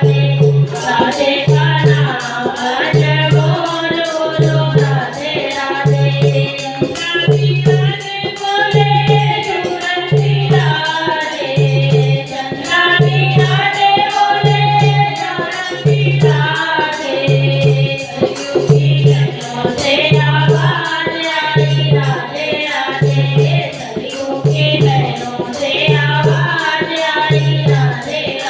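Hindi devotional bhajan: voices singing a melodic chant over a steady, evenly repeating low beat, with jingling hand percussion such as a tambourine.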